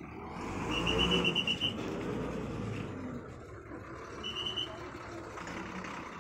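TNSTC bus's diesel engine running as the bus manoeuvres, with short runs of rapid high-pitched electronic beeping from its reversing alarm: a run of about eight quick beeps about a second in and a shorter run past the middle.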